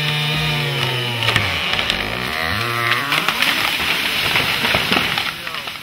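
Chainsaw running at steady high revs in the cut, then throttling down about a second and a half in. The tree then comes down: a crashing, crackling spell of breaking branches and wood with sharp snaps for several seconds.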